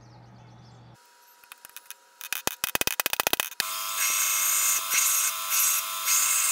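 A quick run of sharp clicks, then an AmeriBrade belt grinder running steadily with a small part held in pliers pressed against the belt. The grinding starts abruptly a little past halfway and is the loudest sound.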